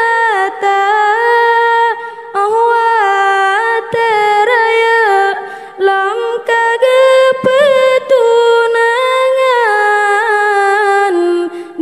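A young woman singing an Acehnese qasidah solo and unaccompanied into a microphone, in long held notes with ornamented turns. She breaks briefly for breath about two seconds in and again near six seconds.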